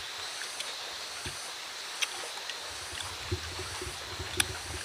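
Steady outdoor background hiss, with a few small clicks from hands picking at steamed fish and banana-leaf wrapping, and a soft low rumble in the last second and a half.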